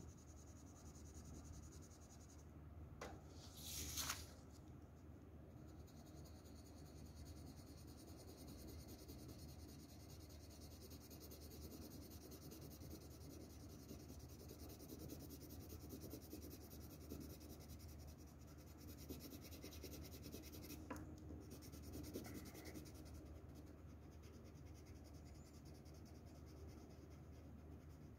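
Faint pencil shading on paper: soft, steady scratching of graphite. There is a brief louder scrape about four seconds in and a single sharp click later on.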